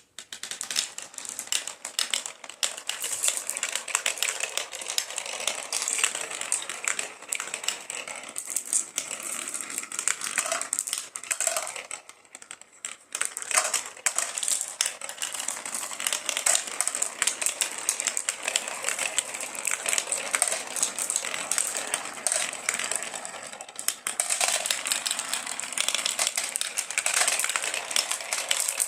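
Marbles rolling and clattering down a marble run: a dense, continuous stream of quick clicks and rattles, thinning out briefly a little before halfway.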